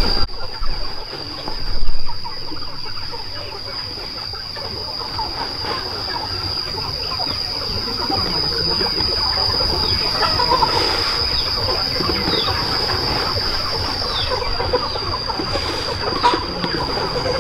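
A flock of chickens and roosters clucking and calling, under a steady high-pitched drone. There is a loud knock or clatter about two seconds in.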